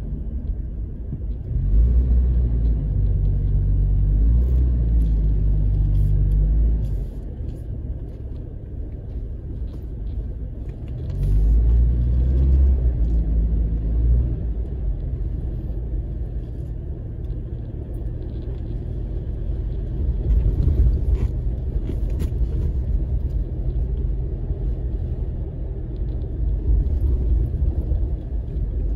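Vehicle cabin rumble while driving off-road over desert sand: a steady low engine and tyre drone that grows louder twice, for about five seconds near the start and again for a few seconds around the middle.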